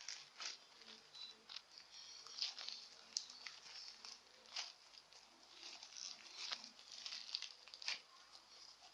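Slime with styrofoam beads mixed in being squeezed and worked by hand, giving soft, irregular crackles and clicks.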